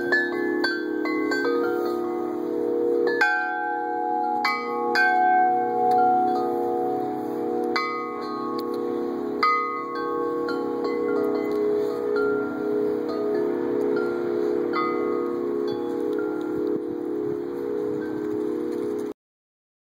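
Large Corinthian Bells wind chime with long metal tubes, set swinging by hand and struck repeatedly, ringing with deep, overlapping tones that sustain long after each strike. The sound cuts out abruptly about a second before the end.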